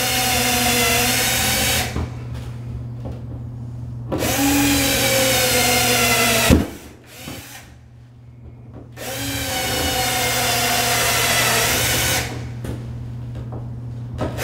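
Small cordless drill boring pilot holes into sheetrock, its motor whining in three runs of about two seconds each with short pauses between, spinning down after the second run.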